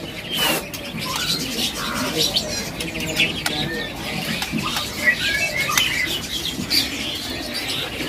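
Many caged songbirds chirping and calling at once, short overlapping chirps and warbles with no single bird leading, over a busy background of small clicks and rattles.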